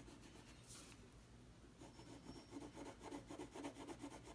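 Crayon colouring back and forth on paper, faint, with a quick run of strokes, about four a second, starting about two seconds in.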